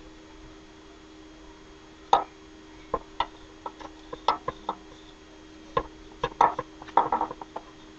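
Irregular knocks and clicks of a glass measuring cup tapping against a plastic mixing bowl as packed brown sugar is shaken and scraped out of it, starting about two seconds in, over a steady low hum.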